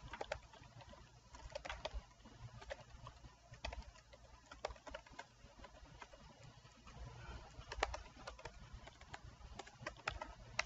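Faint typing on a computer keyboard: irregular keystroke clicks in short runs with pauses, over a low steady room rumble.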